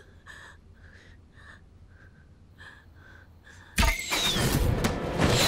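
Tense hush with a faint ticking pulse about twice a second, then about four seconds in a sudden loud crash that breaks into a dense rush of action sound effects with quick falling whooshes.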